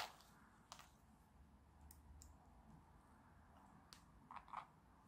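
Very quiet handling of thin 3D-printed plastic puzzle pieces: a few faint, scattered clicks, then two slightly louder taps close together near the end as the assembled plastic model is set down on the mat.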